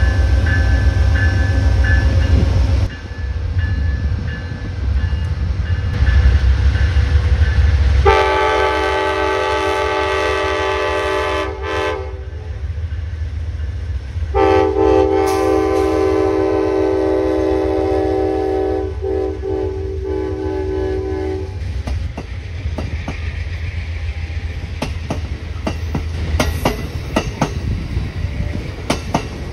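Two Amtrak GE Genesis P42 diesel locomotives under power, engines running, sound a multi-chime air horn: a blast of about four seconds, then after a short gap a longer one of about seven seconds. After the horn, the passenger train rolls past with wheels clicking over the rail joints.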